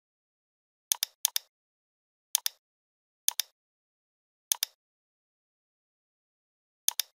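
Computer mouse clicking six times at uneven intervals, each click a sharp double tick of button press and release, with dead silence between.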